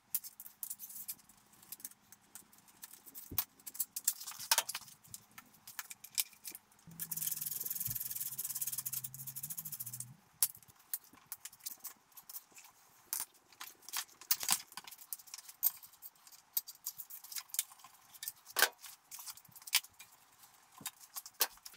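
Scattered clicks, knocks and rattles of tools and metal parts being handled as the front wheel and forks are taken off a trials bike, with a steady whirring noise for about three seconds a third of the way in.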